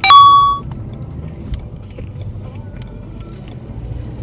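A single electronic beep from the dashcam, a steady high tone lasting about half a second with a click at its start: the camera signalling that the current recording has been locked as a protected event. Steady low engine and road rumble inside the car's cabin follows.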